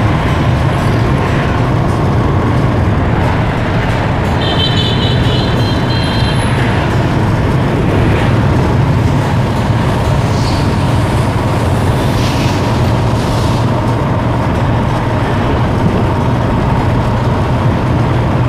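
Street traffic and road noise heard from a moving motorbike: a steady low rumble throughout, with a brief high tone about four and a half seconds in.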